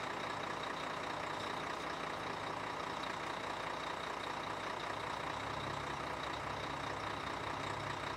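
Heavy truck's diesel engine idling steadily, heard from inside the cab.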